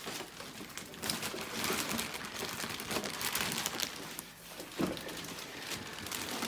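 Clear plastic bag wrapped around a model aircraft fuselage crinkling and rustling as it is handled, in irregular crackles.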